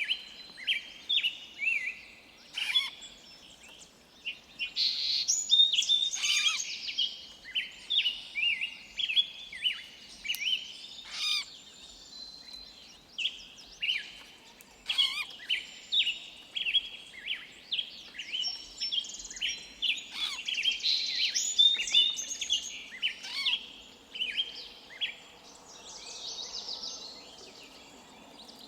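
Forest birds chirping and calling, many short overlapping chirps in quick succession with no let-up.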